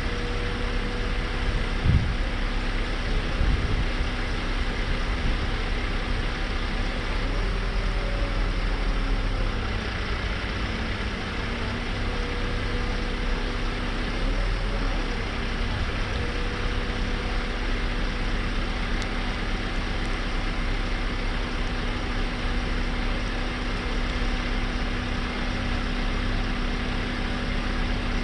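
Nissan NT400 Cabstar's diesel engine running steadily, driving the Isoli PT160 boom lift's hydraulics while the boom is raised. Its note dips and recovers twice, as the hydraulic functions load it. There is a single knock about two seconds in.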